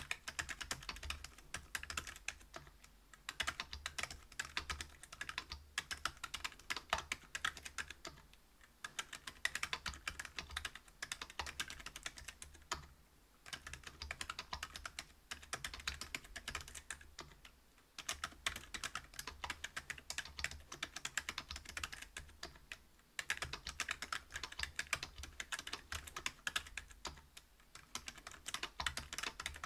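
Fast continuous typing on a Whale 75 mechanical keyboard fitted with stock Gazzew Bobagum silent linear switches (62 g), a brass plate and PBT keycaps. The dampened keystrokes come as a dense rapid patter, broken by short pauses every four to five seconds.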